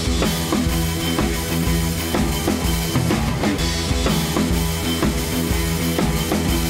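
Rock music with a steady drum-kit beat over bass.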